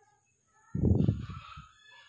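A rooster crows once about a second in, heard at a distance, over a short, loud, low rumbling noise.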